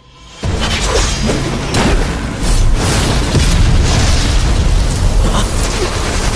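Animated-battle sound effects: a sudden loud energy blast about half a second in, running on as a dense rumble of booms and impacts.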